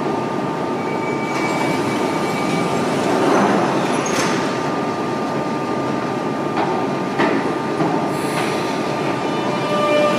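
Jubilee line 1996 Stock tube train standing at the platform with a steady electrical hum; a warning tone sounds for a couple of seconds and the doors close with a few short knocks and hisses. A motor whine sets in at the very end as the train gets ready to pull away.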